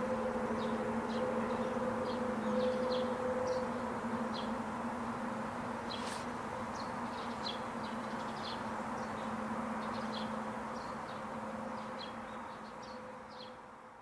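A steady machine hum holding two low tones, with scattered short high chirps of small birds over it, fading out over the last couple of seconds.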